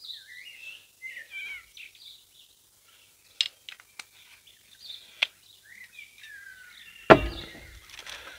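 Birds chirping and calling repeatedly, with a few sharp clicks, then a solid thump about seven seconds in as a glass olive oil bottle is set down on a wooden table.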